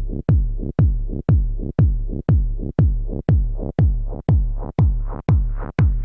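Electronic dance music with a heavy, deep kick drum about twice a second, and a noise sweep rising towards the end.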